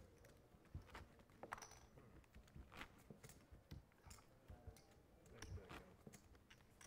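Faint, irregular clicking of clay poker chips being handled and stacked at the table after a pot is pushed to the winner.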